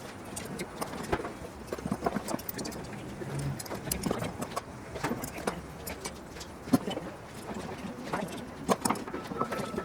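Irregular clicks, taps and knocks of hand tools and small metal aircraft parts being handled during assembly work, with a faint steady high tone starting near the end.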